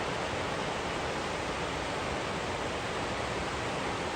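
Steady rushing of Drift Falls, an even, unbroken roar of falling water.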